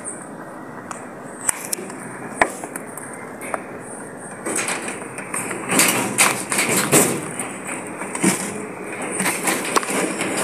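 Rabbits eating pellets from a feed bowl: crunching with scattered sharp clicks and taps. The sound gets busier and louder about halfway through.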